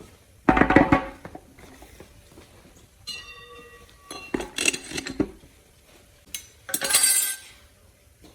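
Metal transmission parts clanking and clinking as they are handled and set down. About three seconds in, a struck metal part rings for roughly a second.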